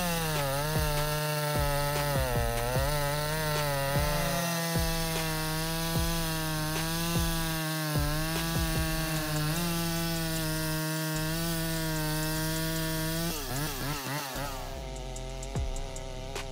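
Chainsaw cutting through wood, its engine holding a steady high pitch under load. Near the end the engine revs up and down.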